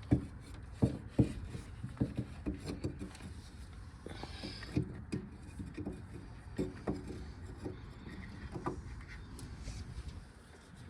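Irregular light clicks and knocks of tools and parts being handled at an engine, with a brief hiss about four seconds in.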